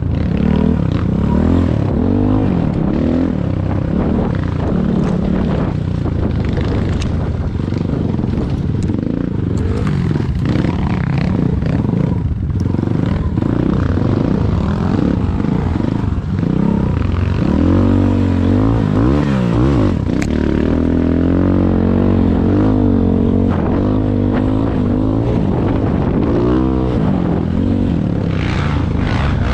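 Enduro motorcycle engine running hard on a rough forest trail, its pitch rising and falling constantly as the throttle is worked, with scattered clicks and knocks.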